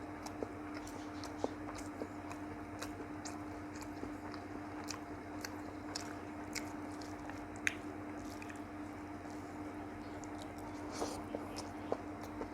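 Close-up chewing and eating mouth sounds, with many small wet clicks and smacks as a mouthful of thali rice and curry is eaten. A steady low hum runs underneath.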